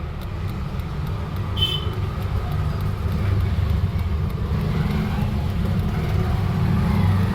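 Steady low rumble, with a brief high beep about one and a half seconds in.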